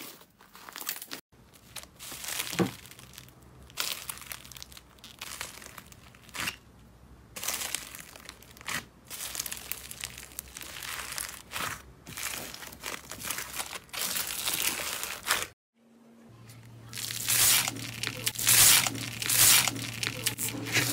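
Hands squeezing and pressing slime loaded with foam beads, making irregular crackling, crinkly squishes. A short silent break comes a little past halfway, and after it a low steady hum sits under the crackling.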